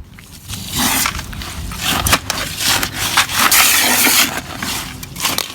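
Dry concrete mix poured from a bag into a container: a loud rushing hiss that starts about a second in, with uneven knocks and scrapes, and eases off near the end.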